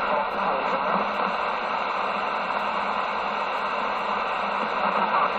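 Steady static hiss from a CB radio's speaker, even and unbroken.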